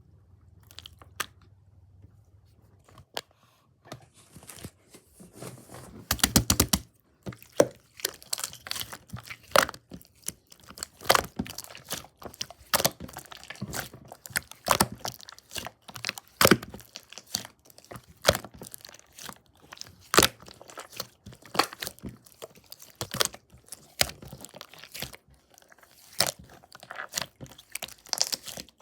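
Crunchy crackling and irregular sharp clicks as a soft crafted material is squeezed and worked by hand close to the microphone, starting quietly and growing denser and louder after a few seconds.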